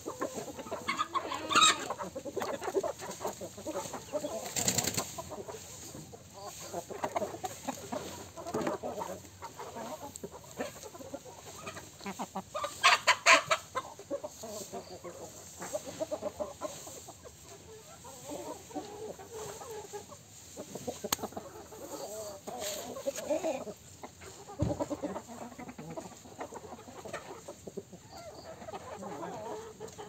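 A flock of chickens, hens and roosters, clucking on and off, with a few louder calls, the loudest a little after twelve seconds in.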